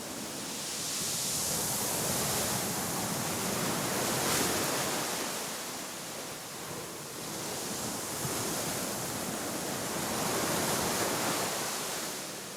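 Sea waves washing onto the shore in a continuous surf, swelling twice and ebbing in between.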